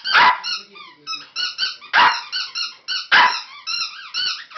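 Chinese crested dog barking four times, each bark loud and sharp, with rapid runs of short high-pitched squeaks in between.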